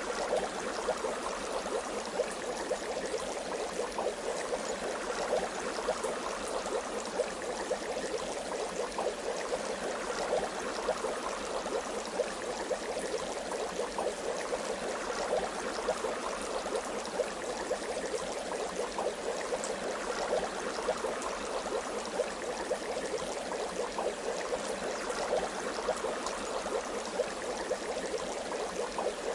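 Bath water bubbling steadily, a continuous fizz of many tiny crackles and pops.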